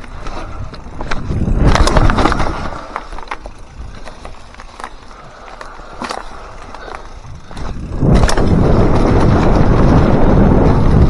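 Mountain bike rolling down a dirt trail: tyre rumble with the bike rattling and clicking over bumps. The noise swells for a moment early on, eases off, then jumps up about eight seconds in and stays loud and steady.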